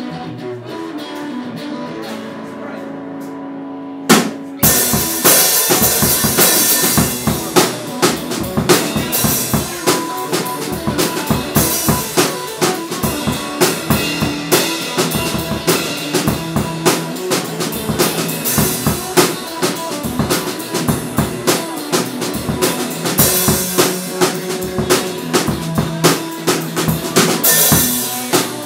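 Electric guitar playing alone for about four seconds, then a drum kit comes in with a hit and a fast beat, and guitar and drums jam together, the drums loudest.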